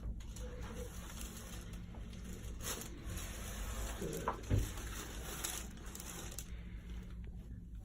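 Rustling of clothing and the treatment table, then a short crack a little past halfway as the neck is adjusted: the joints of the neck popping under a chiropractic adjustment.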